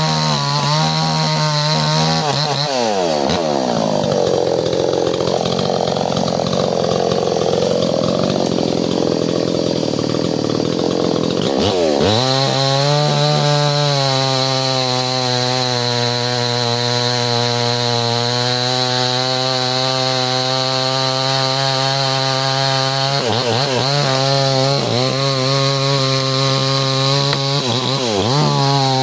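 Two-stroke chainsaw running at high revs. For several seconds, from about three seconds in, it drops in pitch and turns rough and noisy as it cuts into wood under load, then revs freely and steadily again, with brief throttle dips near the end.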